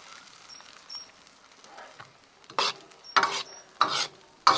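Metal ladle scraping and stirring food in a wok, with a faint sizzle of the simmering sauce underneath. Four sharp scrapes come in the second half, about two a second.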